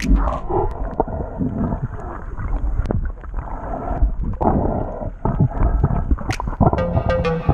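Muffled underwater sound on a submerged action camera: a low rumbling wash of moving water with gurgles and a few sharp clicks.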